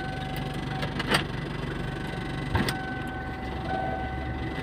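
Inside the cabin of a 2006 Kia Sportage CRDi, its diesel engine runs steadily with an even low hum. A faint steady whine comes and goes, and two short clicks sound about a second apart.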